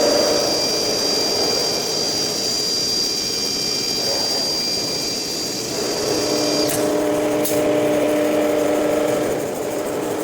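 CNC nesting router running: a high steady whine over a continuous machine hum. About two-thirds of the way in the whine cuts off with a click, a second click follows a little later, and the lower hum carries on.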